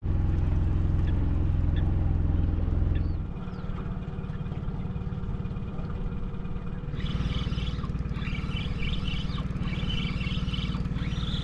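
Small aluminium boat's outboard motor running steadily at trolling speed, a low hum that drops in level about three seconds in. From about seven seconds in, higher chirping sounds ride over it.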